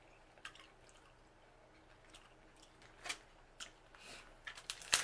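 Scattered soft, wet clicks and squishes of eating seafood in sauce close to the microphone, a few more of them near the end.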